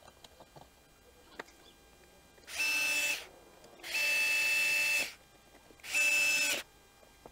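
Cordless electric screwdriver running in three short bursts, each a steady even-pitched whine, the middle one longest, as it drives in the carburetor mounting screws. A few light clicks of handling come before the first burst.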